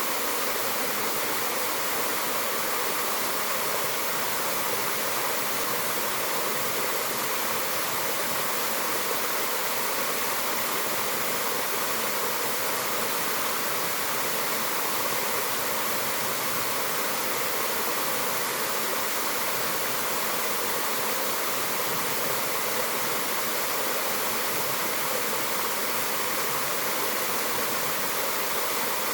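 Mountain waterfall in a forest, water falling and rushing as a steady, even rush of noise.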